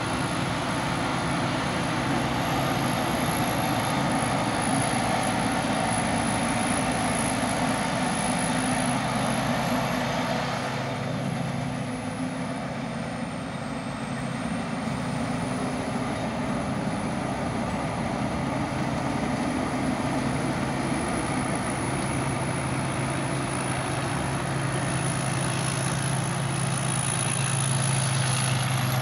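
Rice combine harvester's diesel engine running steadily under load as the machine cuts and threshes the crop. The drone dips slightly about halfway through, then grows louder near the end.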